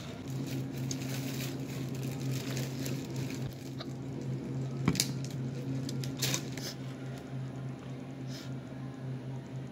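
Small handling sounds of drinking from an aluminium soda can and eating from a foam takeout box. There is a sharp knock about five seconds in as the can is set down, then crackling and scraping of tortilla chips and a plastic fork, over a steady low hum.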